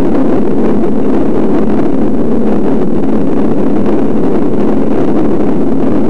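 Loud, steady wind buffeting the microphone of a camera on a moving road bike.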